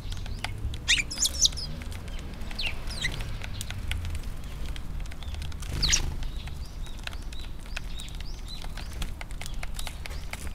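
A flock of Eurasian tree sparrows chirping: short scattered calls, the loudest one about six seconds in, over a scatter of small sharp clicks.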